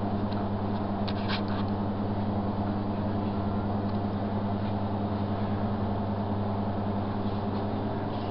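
Steady low electrical hum in a shop, with a few faint clicks about a second in.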